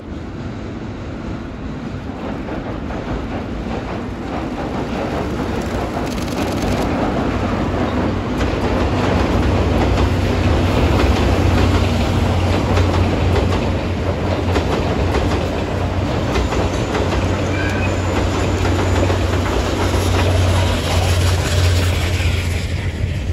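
A passenger train of five 12-series coaches with an EF64 electric locomotive crossing a steel girder bridge: a deep rumble of wheels on the bridge with clickety-clack from the rail joints. It grows louder as the train comes close, about halfway through, and stays loud while the coaches pass.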